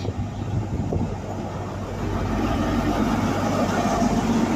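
Class 43 HST diesel power car arriving along the platform and passing close by, its engine running with a steady low hum. About halfway in it grows louder and adds a higher steady whine, loudest near the end as the power car goes past.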